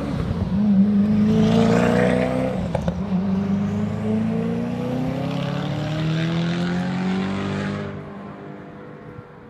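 Koenigsegg One:1's twin-turbocharged V8 accelerating hard, its pitch climbing, dipping once about three seconds in at an upshift, then climbing again. The sound falls away sharply about eight seconds in.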